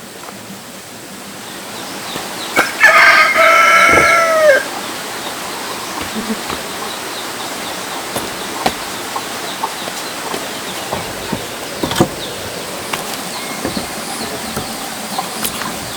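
A rooster crowing once, a loud drawn-out call of about two seconds that drops in pitch at its end, about three seconds in. Scattered small clicks and taps follow.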